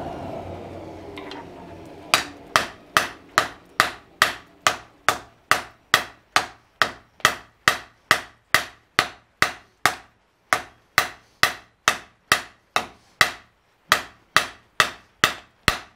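Heavy blacksmith's hammer striking a glowing, freshly forge-welded steel bar on the anvil face, drawing it out into a taper. A steady run of sharp blows, about two to three a second, begins some two seconds in after a fading hiss, with brief pauses about ten and fourteen seconds in.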